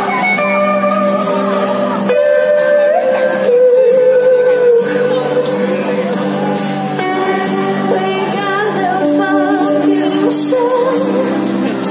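Live band music: a woman singing long, wavering held notes over strummed acoustic guitar, electric guitar and drums, heard through the stage PA from the audience.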